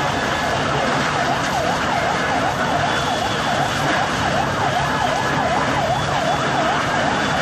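Emergency vehicle siren in a fast yelp, its pitch sweeping down and up several times a second, over a steady dense background noise. The sweeps start about a second in.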